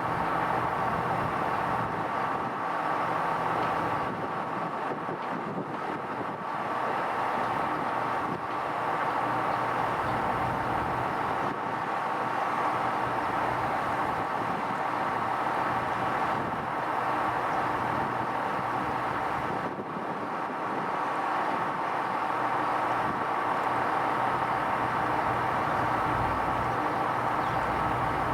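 A steady mechanical drone with a constant hum and no distinct events.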